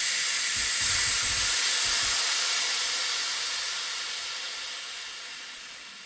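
Compressed air hissing out of a hand-pump garden pressure sprayer as its pressure is let out, the steady hiss fading away as the tank empties.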